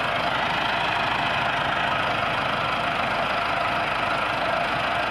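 Massey Ferguson 375 tractor's four-cylinder diesel engine running steadily under a heavy load, pulling a loaded sugarcane trolley while the tractor slips.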